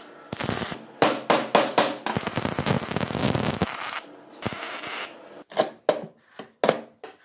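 Wire-feed (MIG) welder tack-welding steel: several short bursts of crackling arc, then one longer weld of about a second and a half, then a few brief sharp crackles later on.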